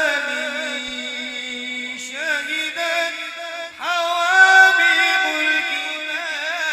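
A man's voice singing a high, melismatic Arabic suluk through a microphone and PA, drawing out long vowels with quick wavering ornaments over a held lower note. About four seconds in, the voice leaps up to a higher sustained pitch.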